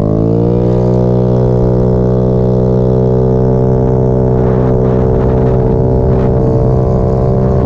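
Honda Ruckus scooter's small single-cylinder engine pulling away: its note rises over the first half second, then holds a steady pitch while the scooter cruises.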